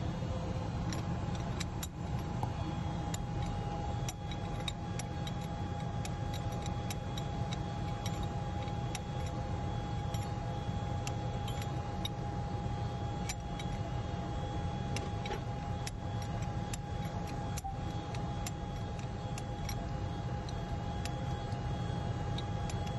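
Steady drone of running ship engine-room machinery with a constant high whine, over scattered light metallic clicks as the fuel pipe fittings are handled and threaded by hand.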